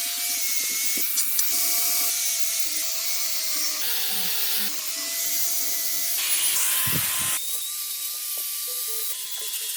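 A small electric power tool whining steadily with a loud abrasive hiss, its pitch jumping at several abrupt edits.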